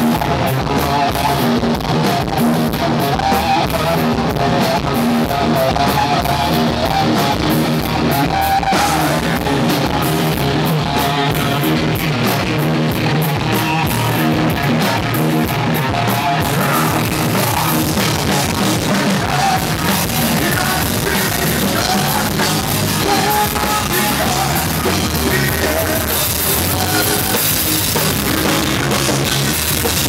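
Rock band playing live: drum kit, electric bass and electric guitar with a male singer, a loud, driving rock song, the cymbals crashing more heavily from about halfway.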